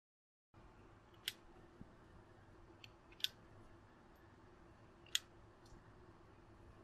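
Three sharp metallic clicks about two seconds apart, with a couple of fainter ticks between them, over quiet room tone: cartridges being dropped one at a time into the chambers of a Mauser C78 'Zig-zag' revolver's cylinder, its frame tipped open for loading.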